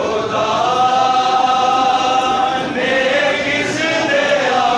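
A large crowd of male mourners chanting together in long, drawn-out sung notes, a devotional mourning chant, with a new phrase starting about three seconds in.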